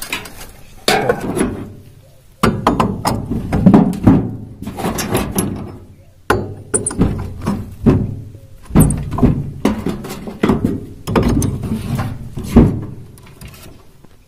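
Handling noise at a motor starter panel: irregular knocks, clicks and clatter as wires are moved about and porcelain kit-kat fuse carriers are handled, with a dozen or so loud bumps.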